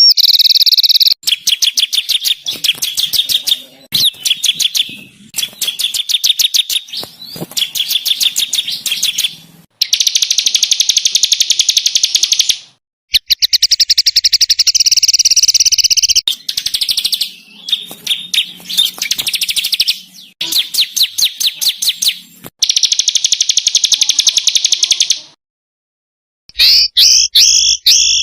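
Songbird song recorded as masteran: fast rapid-fire strings of sharp repeated notes and dense trills, in loud segments that start and cut off abruptly, with short silent gaps between them.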